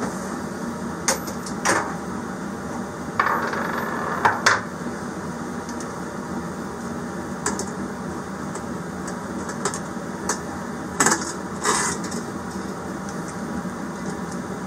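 Metal hose clamps and hand tools clinking and knocking as they are handled, at irregular intervals with a busier patch about three to four seconds in, over a steady low hum.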